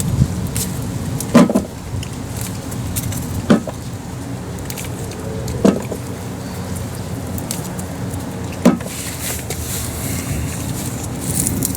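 Four sharp knocks, one every two to three seconds, from gooseberries dropping into a bucket during picking, over a steady low rumble of wind.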